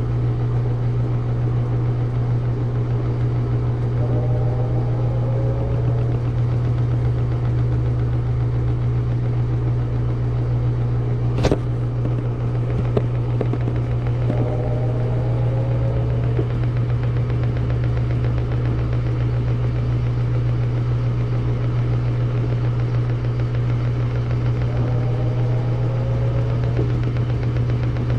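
Samsung washing machine running through its wash cycle: a steady low hum, with a whirring tone that swells and fades about every ten seconds as the drum turns, and one sharp click about a third of the way in.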